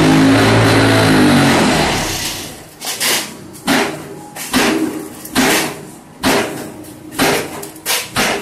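An engine runs loudly, its pitch rising and falling, then fades out about two seconds in. After that comes a regular series of sharp knocks, about one every 0.8 seconds.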